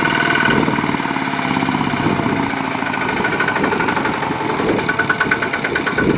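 Single-cylinder diesel engine of a Kubota ZT140 two-wheel walking tractor running steadily with a rapid, even chug.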